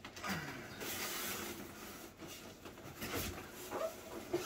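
Cardboard and packing material being handled as a statue box is opened: irregular rustling and scraping with a few light knocks.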